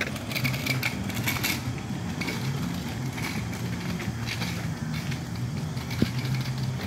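Road traffic noise with a motor vehicle running nearby, steady throughout, broken by one sharp click about six seconds in.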